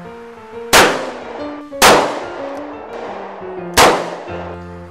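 Three revolver shots, one about a second in, the next a second later and the third two seconds after that, each with a short echoing tail. Music plays underneath.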